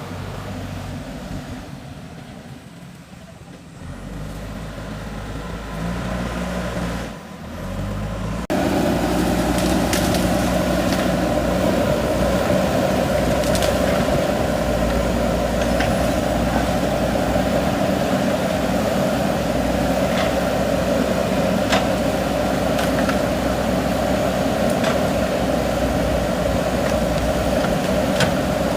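JCB 3DX backhoe loader's diesel engine running as the machine works, its pitch shifting in the first few seconds, then suddenly louder and steadier about eight seconds in, with occasional sharp clicks.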